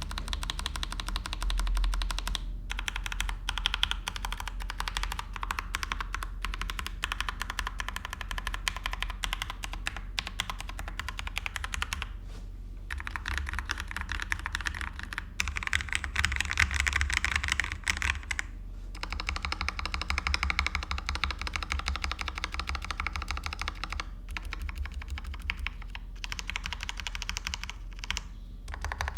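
Fast continuous typing on a Leopold FC750R mechanical keyboard with lubed Kailh Box Black linear switches and GMK keycaps: a dense run of keystroke clacks, broken by a few short pauses.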